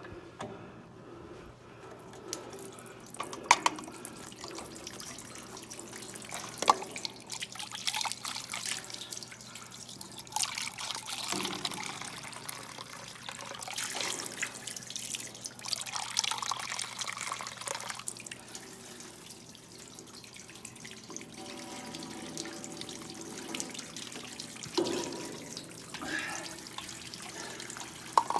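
Water running from a spring-water tap and splashing into a stainless-steel trough, with a few sharp knocks, the loudest about three and a half and seven seconds in.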